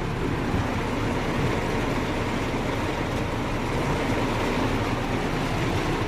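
Steady rain on a car's roof and windows, heard from inside the cabin over the car's idling engine.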